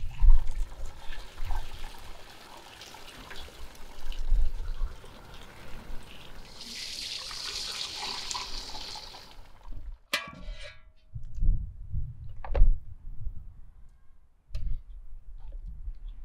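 Fish broth poured in a steady stream from a large pot through a stainless steel mesh strainer, splashing loudest toward the end of the pour. About ten seconds in the pouring stops, and a few clinks and knocks of utensils and fish pieces on a plate follow.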